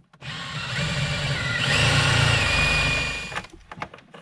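Cordless drill with a step bit boring a hole through plastic dash trim; the motor whine rises in pitch partway through and stops after about three seconds, followed by a few light clicks.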